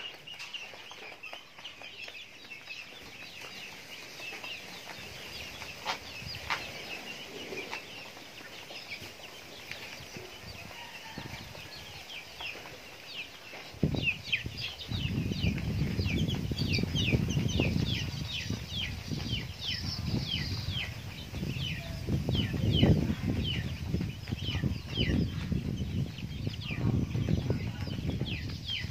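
Young chickens feeding, with rapid high chirps that fall in pitch, coming thicker from about halfway through. From about halfway a louder low rustling noise also comes in gusts.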